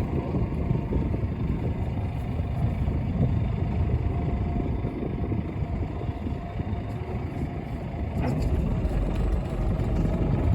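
Fishing boat's engine running steadily: an even low-pitched drone with a faint steady tone, plus a few scattered light knocks.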